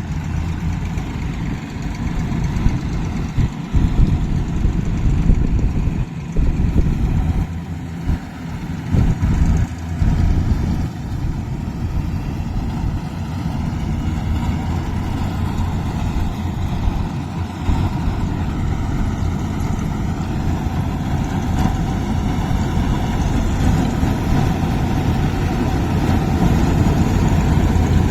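Diesel engine of a Yanmar rice combine harvester running with a steady low hum. It is uneven in loudness for about the first ten seconds, then runs steadily.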